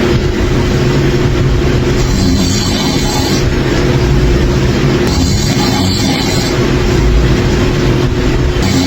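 Loud, rumbling snoring that comes in rhythmic breaths about three seconds apart, with a hissy rasp on each breath.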